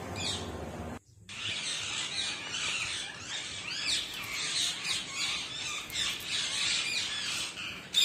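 Rose-ringed parakeet squawking over and over in a fast run of harsh, rising and falling shrieks, starting about a second in after a brief dropout.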